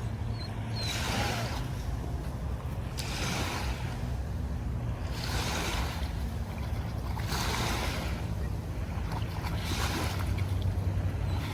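Water washing in small waves, a hissing surge about every two seconds, over a steady low wind rumble on the microphone.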